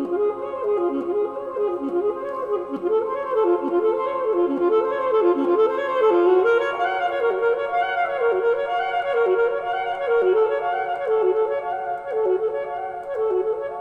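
Music: a single wind-instrument melody whose notes swoop up and down in a short phrase that repeats about once a second, at a steady level throughout.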